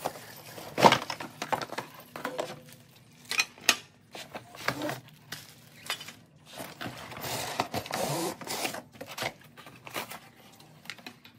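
Unboxing noise: a cardboard box and plastic-bagged trimmer parts rustling and knocking as they are pulled out and set down on a table. There are sharp knocks about a second in and again around three and a half seconds, and a longer crinkling rustle around the eight-second mark.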